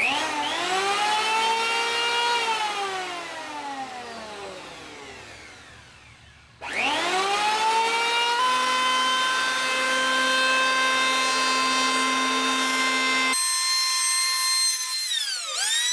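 Wen 6534 electric hand planer's motor and cutter drum spinning up with a rising whine, then winding down over a few seconds. It is started again about six seconds in and runs at a steady whine, then dips and picks up once more near the end.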